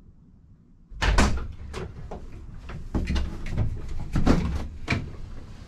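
Twin rear doors of a Vauxhall Combo van being unlatched and swung open from outside, heard from inside the empty metal load area: a run of clicks, knocks and rattles starting about a second in.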